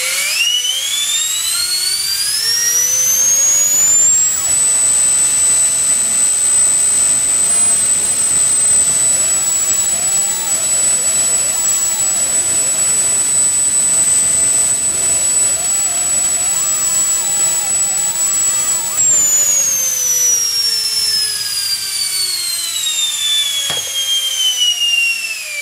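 FMS 80mm Pro electric ducted fan on a 6S lipo pack spooling up to full throttle over about four seconds, then holding a steady, loud high whine with a rush of air. After most of the run it winds down, the whine falling steadily.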